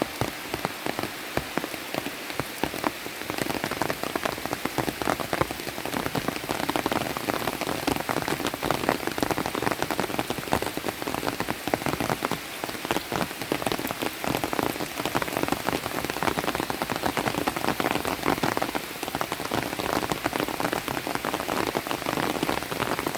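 Heavy tropical rain falling steadily on the leaves of forest vegetation, a dense even patter of countless drops.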